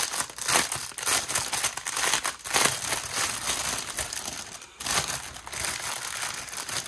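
Clear plastic bag stuffed with small baggies of diamond-painting drills crinkling and rustling as hands rummage through it, with irregular sharp crackles.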